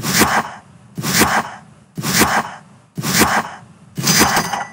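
Countdown timer sound effect: five short, noisy whooshing hits, one a second, the last with a high ringing tone in it.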